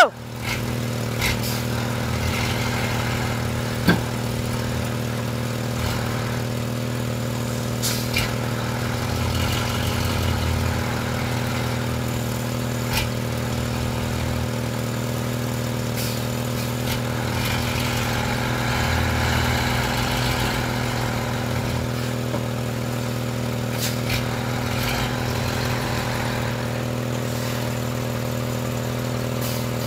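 Heavy flatbed truck's diesel engine running steadily at low revs while the fully loaded truck crawls around a tight turn, with a few light knocks scattered through.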